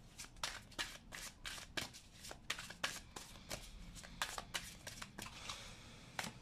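A deck of tarot cards being shuffled by hand: a run of short, irregular card flicks and slaps, about two or three a second.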